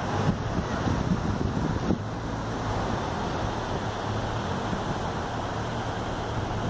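Wind buffeting the phone's microphone, with ocean surf washing underneath.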